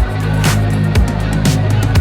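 Background music with a steady beat, about two beats a second, over a strong bass line.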